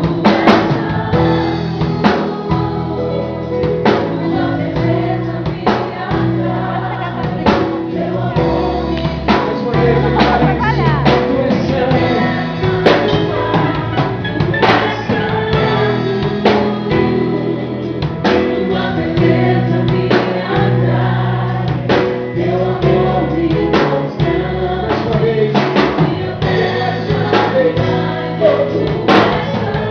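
Portuguese-language gospel worship music: voices singing together over a band, with sustained bass notes and a steady drum beat.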